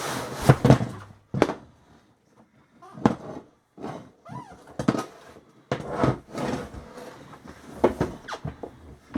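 Irregular knocks and clunks of old office-chair parts being struck and worked loose while the chair is taken apart, about a dozen separate thuds spread unevenly with short pauses between.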